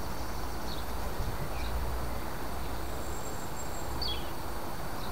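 Outdoor ambience with a steady low rumble of wind on the microphone, and a bird giving a few short, high, falling chirps, the clearest about four seconds in.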